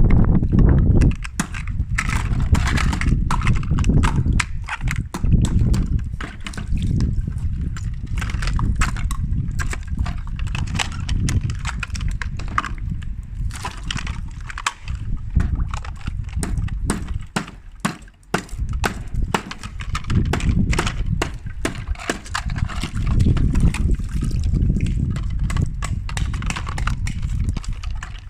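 Ice cubes clicking and clattering rapidly against each other and a hard surface, over a steady low rumble.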